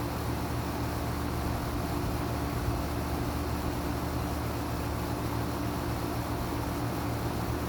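2019 Carrier Comfort central air conditioner's outdoor unit running steadily: an even low hum with a wash of fan noise over it.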